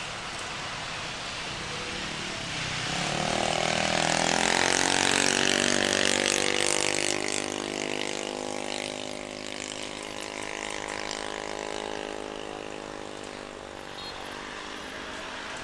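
Boeing 777-300ER's twin GE90 turbofans running at taxi power as the airliner turns onto the runway: a whine and hiss with a hum of engine tones. It grows loudest about four to seven seconds in, then eases and drifts slightly lower in pitch.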